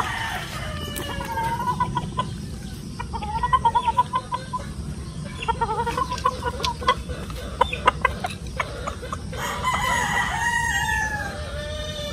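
Chickens clucking in short repeated calls, with a longer rooster crow about ten seconds in. Sharp little clicks fall between the calls.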